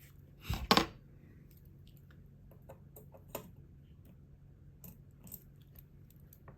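Faint clicks and taps of small metal watchmaking tools working on a wristwatch movement, with two louder knocks under a second in.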